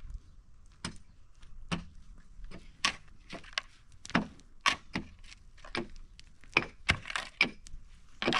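Digging into a dry, stony earth bank with a wooden-handled tool and pulling stones loose by hand: irregular knocks, scrapes and clatters of stones and soil, about a dozen sharp strikes with short pauses between them.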